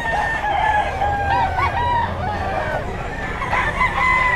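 Several roosters crowing, their long, slightly falling calls overlapping one another among many penned chickens.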